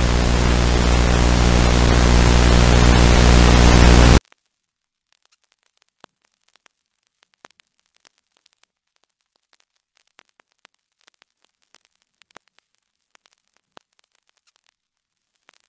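Loud hissing static with a low electrical hum underneath, swelling slightly, then cut off suddenly about four seconds in. After it, near silence with sparse faint clicks and crackles.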